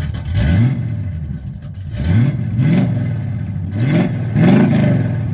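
Car engine revved in about five quick blips, each rising in pitch and dropping back, over a steady low idle.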